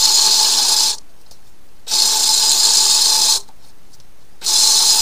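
Drain-cleaning flex shaft machine switched on and off in bursts of one to one and a half seconds, a loud whirring hiss with a steady whine, its spinning cable working inside a clogged sink drain line.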